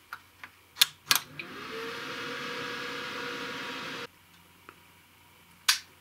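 Sharp clicks as the server's power button is pressed, then the computer's fans spin up: a whir whose tone climbs briefly and settles into a steady hum, the CPU fan revving hard at boot as the owner believes this motherboard does. The whir cuts off suddenly about four seconds in, and one more sharp click comes near the end.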